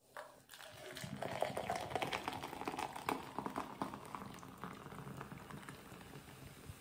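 Carbonated Monster Energy drink poured from a can into a plastic cup, fizzing with many fine crackles as it foams up. It is loudest in the middle and fades near the end.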